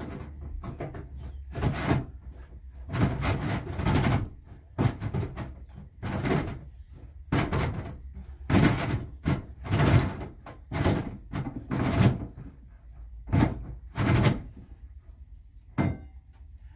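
Cordless drill driving a hole saw up through the metal bus ceiling in about fifteen short bursts, roughly one a second. The saw keeps grabbing and binding, so each burst stops short before the next try.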